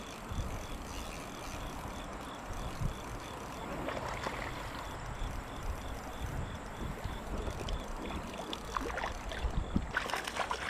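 Creek water and wading noise with wind rumble on the microphone, and a short burst of splashing about ten seconds in.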